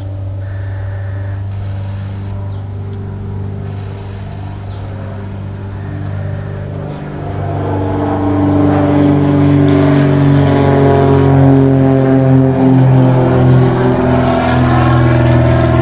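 Mooney M20J 201's four-cylinder Lycoming IO-360 engine and propeller at full takeoff power as the light aircraft takes off and climbs out, growing much louder about halfway through as it comes close past.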